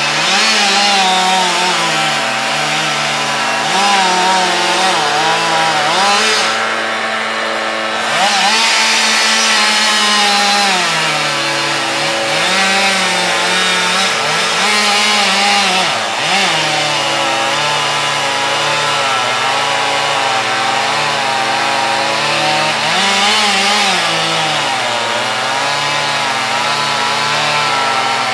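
Gasoline chainsaw running and cutting wood, its engine pitch repeatedly dropping under load and rising again as it revs. A steady lower engine drone runs underneath.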